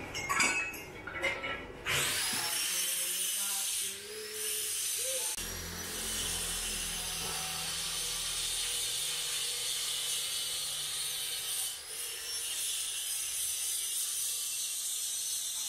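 Power tool grinding against metal: a steady high grinding hiss starts about two seconds in, after a few knocks, and its pitch dips and recovers several times.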